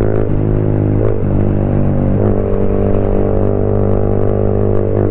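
Yamaha MT-15's single-cylinder engine running steadily under load in sixth gear at around 5500 rpm, through an Akrapovic exhaust with its dB killer removed. Its pitch shifts slightly a few times.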